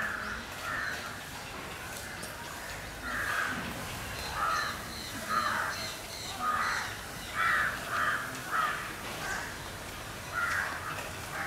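Crows cawing repeatedly, with short harsh caws coming singly or in quick twos and threes every second or so. A faint run of high, evenly spaced chirps can be heard midway.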